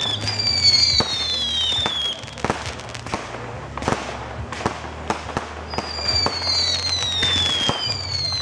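Fireworks display: shells bursting with sharp bangs and pops, and several falling whistles from whistling fireworks, one group near the start and another from about six seconds in.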